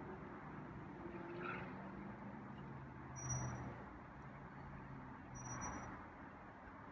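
Faint motor vehicle engine running at a distance: a low hum that swells a few times.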